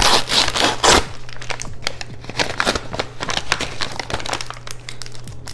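Plastic KitKat snack bag being pulled and torn open by hand: a dense rush of crinkling in the first second, then scattered crackles as the torn film is worked open.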